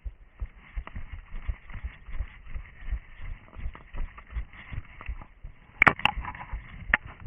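Running footsteps on forest ground, about three thuds a second, over a steady hiss. A few sharp cracks come near the end.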